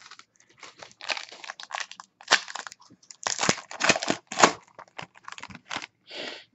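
Foil wrapper of a Panini Court Kings basketball card pack crinkling in the hands as it is opened: a rapid string of crackles and rustles, loudest about two to four and a half seconds in.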